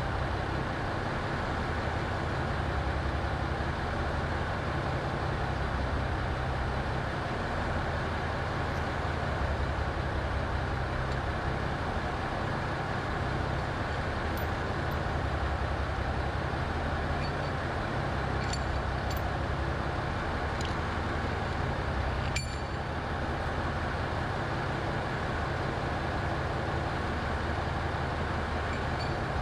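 A steady machine drone with a low hum underneath, unchanging throughout, with a few faint metallic clicks from engine parts being handled and one sharper click about two-thirds of the way in.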